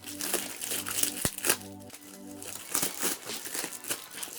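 Parcel packaging crinkling and rustling in bursts as it is handled and opened, its tape just cut.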